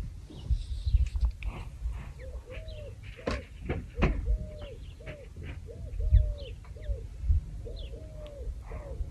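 A bird calling a quick run of short, arched notes, about two a second, which sound like "gigi gigi", with thinner chirps above them. Under it runs a low rumble, with two sharp knocks around the middle.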